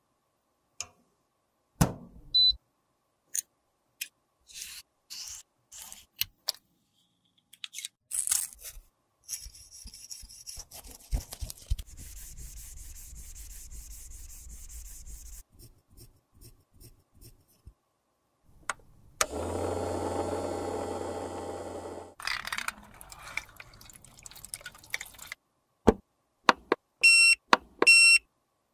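A run of small handling sounds: clicks, taps and light scrapes. A steady mechanical hum runs for about three seconds past the middle. Near the end, two short electronic beeps come from a UV sterilizer box as its button is pressed.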